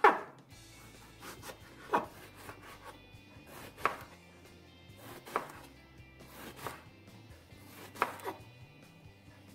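Kitchen knife chopping aubergine into small cubes on a wooden cutting board: about six separate knocks of the blade through the flesh onto the board, one every one and a half to two seconds.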